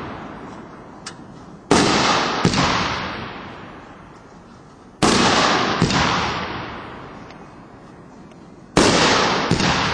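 Three 3-inch aerial firework shells bursting, one about every three and a half seconds. Each loud bang is followed by a smaller crack a moment later and a long fading rumble.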